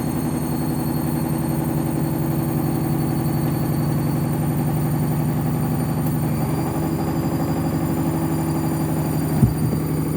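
Washing machine spinning a load of towels: a steady motor hum with a fast, even throb from the turning drum. A single sharp knock sounds about nine and a half seconds in.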